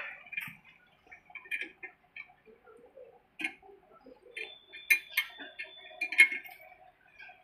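Scattered metallic clicks and taps as tools and metal parts knock together at the tractor's rear axle and jack, with a few sharper clinks about five and six seconds in and a brief metallic ring between them.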